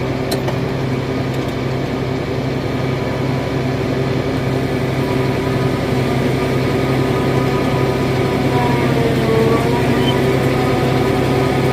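Heavy diesel farm machinery engine running steadily under load, a constant low drone with a slight rise in level over the stretch.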